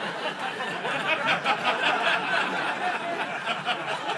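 Audience laughing at a comedy show, a crowd of many voices laughing at once.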